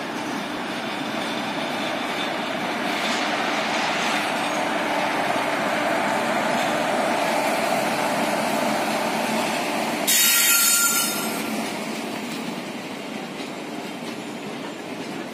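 Train hauled by an Indian Railways WAG-7 electric locomotive rolling past, a steady rumble of locomotive and coaches on the track that grows louder. About ten seconds in there is a sudden loud, high-pitched burst lasting about a second, and then the rumble slowly fades.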